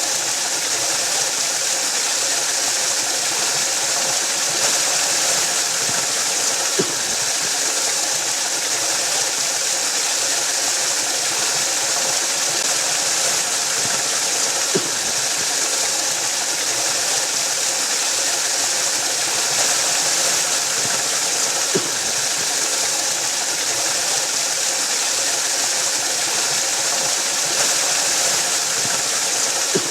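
Waterfall: a steady rush of falling water, an even bright hiss, with a few faint low knocks spaced several seconds apart.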